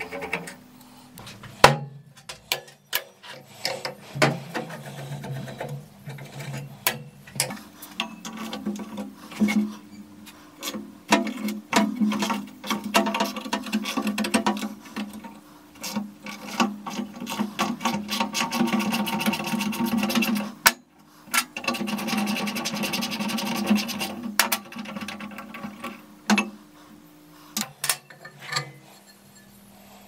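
Hand tools working on an old electric school bell: scattered clicks and metal knocks from a screwdriver on the cover screws, then a ratchet wrench clicking rapidly for long runs as it backs off the nut that holds the bell's gong, with a short break about two-thirds of the way in.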